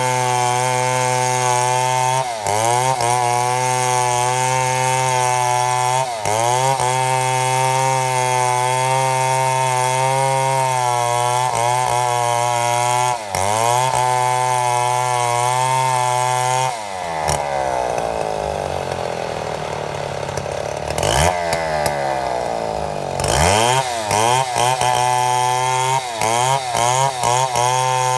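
Chainsaw running at high speed under load, milling a mahogany log lengthwise, with a few brief dips in engine speed. About 17 s in the engine slows and wavers for several seconds, then revs back up.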